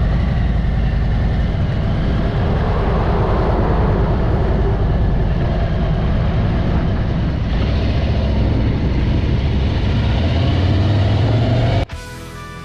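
Harley-Davidson Ultra Limited's V-twin engine running loud as the bike rides off, the revs climbing in the latter part. It cuts off suddenly near the end, replaced by guitar music.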